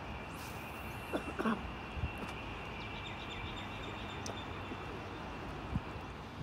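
Quiet outdoor ambience by the water: a steady background hiss with faint chirping birds and a couple of soft brief knocks about a second in.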